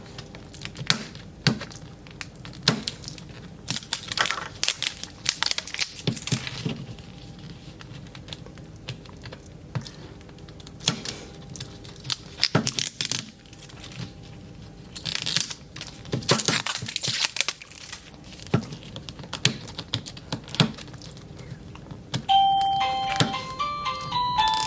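Plastic packaging of a Mini Brands capsule being crinkled and torn open by hand, with scattered clicks and knocks of the plastic being handled. Chiming background music starts near the end.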